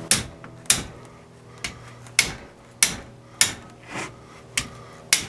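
A hand wrench working a ring-gear bolt on a Dana 44 differential carrier, giving sharp metal clicks about every half second or so.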